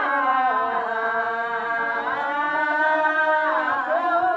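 Vocal chanting in long held notes, the pitch shifting about two seconds in and again near the end.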